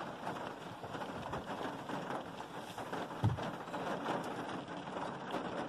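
Rain pattering on glass, heard from inside a car: a steady hiss of many small drop ticks. A single dull thump about three seconds in.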